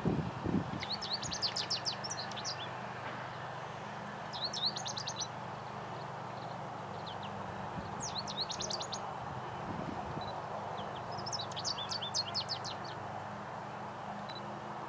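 Male American goldfinch singing its spring song: four bursts of rapid, high, varied notes a few seconds apart. Steady low background noise throughout, with a couple of low thumps near the start and about ten seconds in.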